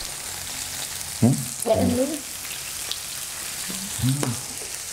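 Pork belly slices sizzling steadily on a hot flat grill plate, with a few light ticks. Short voiced sounds from the people at the table about a second in and again near the end stand out above the sizzle.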